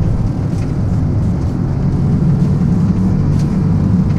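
Hyundai HB20's 1.0 turbo three-cylinder engine pulling at full throttle, heard from inside the cabin mixed with road and wind noise, a steady low drone as the car accelerates hard.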